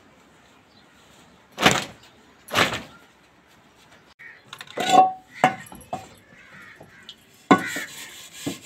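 Wet laundry being shaken out, with two sharp snaps of cloth less than a second apart and then a few lighter flaps. Near the end, metal dishes clatter against each other.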